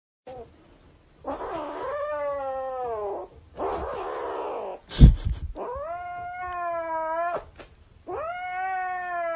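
Kitten meowing, about four long drawn-out calls, with a sharp thump about five seconds in.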